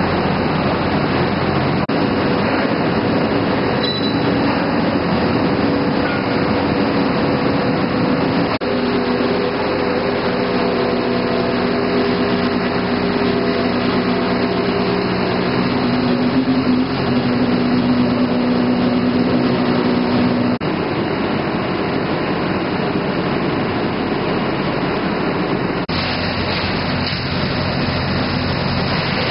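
Grape-processing machinery running: a steady mechanical noise with grape mash tumbling and pouring, a steady motor hum in the middle stretch. The sound changes abruptly a few times.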